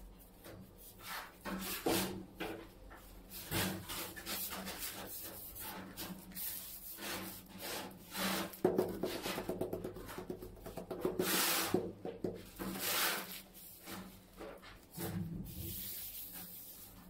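Irregular rubbing and scraping strokes from tiling work: gloved hands working against ceramic wall tiles set in tile adhesive.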